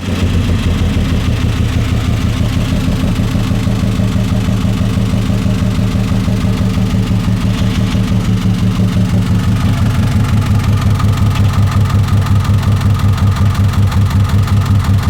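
1999 Honda Odyssey's V6 engine running steadily with a regular tapping, which the mechanic takes for an engine problem rather than a transmission fault.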